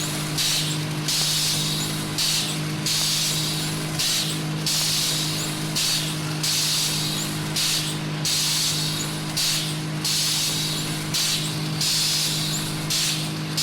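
Rhythmic hissing, a little more than one burst a second with short breaks between them, over a steady low hum, like a machine venting steam or air.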